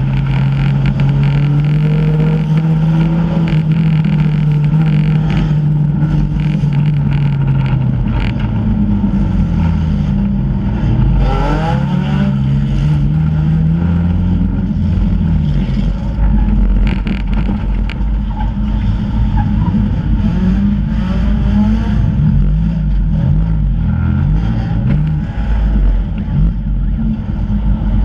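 Four-cylinder enduro race car's engine heard from inside its stripped cabin, running hard under racing load. Its pitch holds steady for several seconds, then rises and falls repeatedly as the driver lifts and gets back on the throttle, with a quick climb in revs around eleven seconds in.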